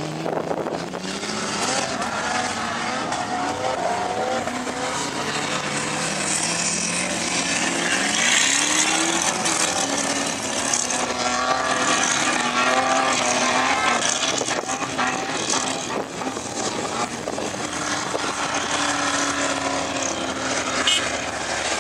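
4x4 engine revving hard while driving on sand dunes, its pitch climbing and dropping again and again as the throttle is worked.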